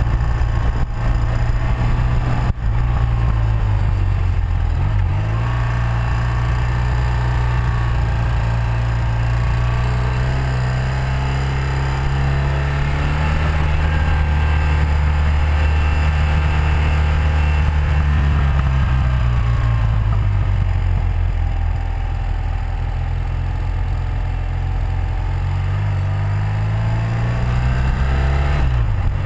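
1984 BMW R100RS's air-cooled flat-twin engine running under way, its note climbing and falling several times as the throttle is opened and closed through the bends, with wind noise over it. A brief click about two and a half seconds in.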